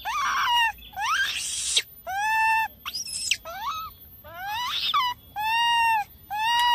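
A baby macaque calling over and over: about eight high coos and screeches in quick succession, some arching and some rising harshly. These are an infant's calls for its mother, used as a lure for wild monkeys.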